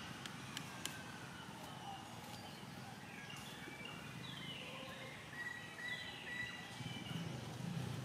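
A baby monkey's thin, high-pitched cries, two of them falling in pitch, with a few light clicks near the start.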